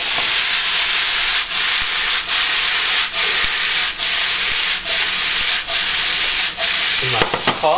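Chopped cabbage sizzling in hot bacon fat in a skillet while the pan is tossed, the food sliding and landing in the fat. The sizzle is steady, with short dips about once a second.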